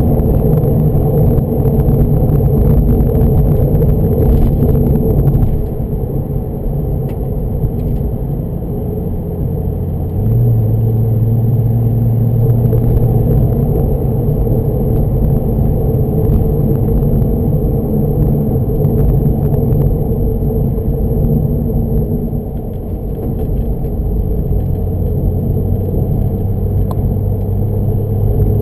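Porsche 996 911 Turbo's twin-turbo flat-six engine heard from inside the cabin, running at low revs with a steady low rumble as the car moves slowly. Near the end the revs begin to rise.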